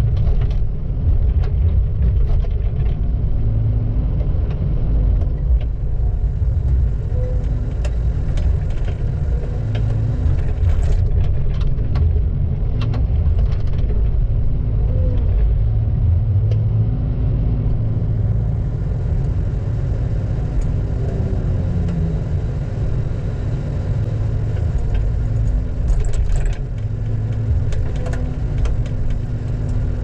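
Heavy logging machine's diesel engine running steadily with a deep, even sound. A few light clicks and rattles come over it, several of them near the end.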